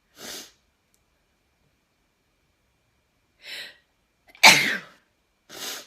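A person sneezes once, loud and sudden, about four and a half seconds in: an induced sneeze. Short, hissing breath sounds come near the start, about a second before the sneeze, and again just after it.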